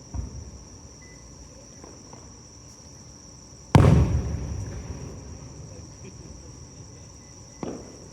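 Fireworks shells bursting. There is a small bang just after the start, a loud boom a little under four seconds in that rumbles away over about two seconds, and another bang near the end.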